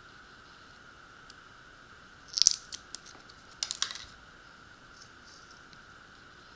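Light clicks and scrapes of small plastic bushings being handled and fitted onto an RC boat's drive shaft: a cluster about two and a half seconds in and another about four seconds in, over a faint steady high whine.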